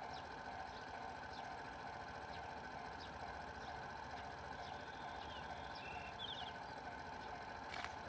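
Level-crossing warning bell ringing steadily as the crossing stands active, with small birds chirping high over it and a quick trill about six seconds in. A sharp click sounds just before the end.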